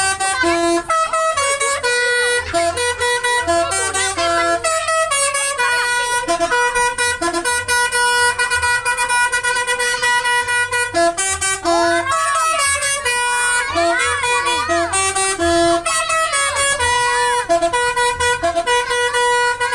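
Basuri multi-tone telolet bus horn playing a melody: several steady tones sounding together, the notes switching pitch every fraction of a second, with brief pauses around ten seconds in.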